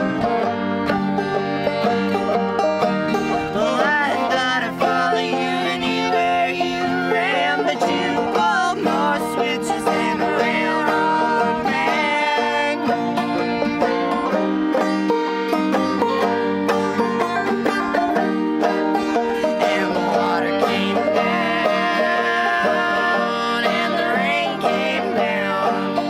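Banjo, acoustic guitar and fiddle playing a bluegrass-style tune together, with the banjo loudest.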